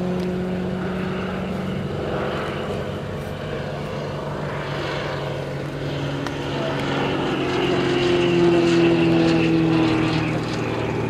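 Single-engine propeller drone of a high-wing light aircraft flying a display, a steady engine note that shifts in pitch and grows louder about eight seconds in.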